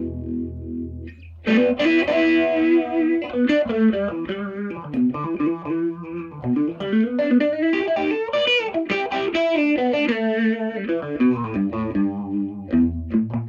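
Electric hollow-body guitar played through a Univox U-1226 tube amplifier with a Uni-Vibe effect pedal in front of it. A held chord dies away about a second in, then a run of single notes winds up and down the neck.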